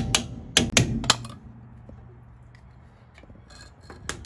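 Sharp metal-on-metal taps of a tool striking a screwdriver wedged under the dust cap of a caravan brake-drum hub, knocking the cap loose so the drum can come off. Four strikes in the first second or so, then a pause with small clicks of prying at the cap, and one more strike near the end.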